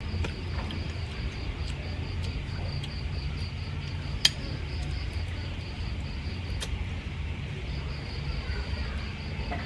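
Insects chirping in a fast, steady pulse over a low steady rumble, with a short break about seven seconds in. A single sharp click about four seconds in stands out above them.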